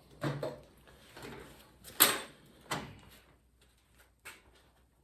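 Several knocks and clatters of tools and parts being handled while fitting a sprocket and chain, the loudest about two seconds in.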